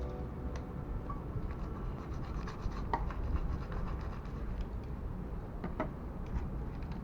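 Scratching and scraping with scattered light clicks over a steady low hiss, sharpest about three seconds in and again near six seconds.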